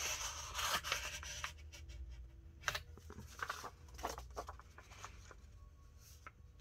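Cardstock being handled after scoring: a rubbing, sliding sound for the first second or so, then scattered light taps and clicks of paper being moved and pressed.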